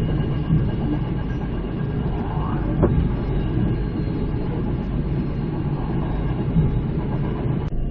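Passenger train running along the track: a steady low rumble of wheels and carriages, with a single sharp clack about three seconds in. The sound cuts off abruptly near the end.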